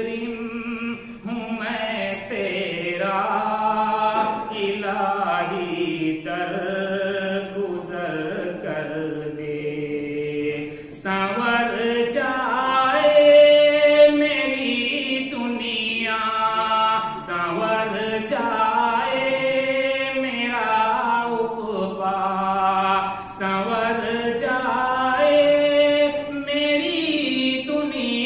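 A man's solo voice chanting an Urdu devotional nazm unaccompanied, in long held melodic lines that rise and fall.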